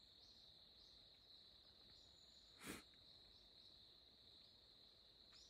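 Near silence with a faint, steady trill of crickets, and one brief breath-like noise about two and a half seconds in.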